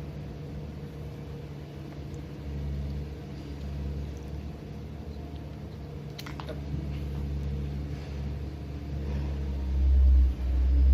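Steady low rumble that swells near the end, with a single light click about six seconds in.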